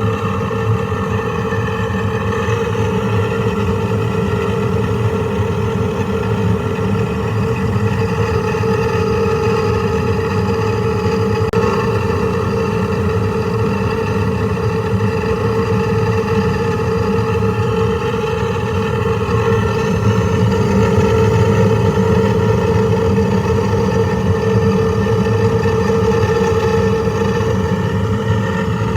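Furnace draft inducer motor running with a steady whining tone over a rough, rumbling hum, a little louder about twenty seconds in: the telltale sound of a failing inducer motor.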